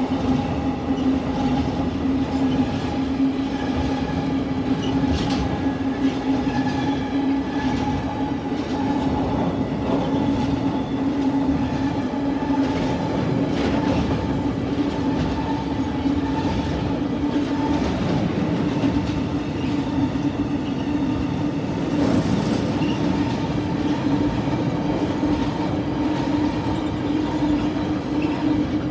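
Tank wagons of a freight train rolling past close by: a steady rumble of steel wheels on rail with a humming tone over it, a few knocks and some clickety-clack at rail joints.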